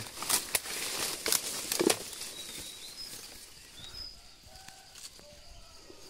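Rustling and several sharp clicks as a nylon mist net and a bamboo pole are handled among leaves, busiest in the first two seconds. It then settles to quieter handling with a few faint short chirps.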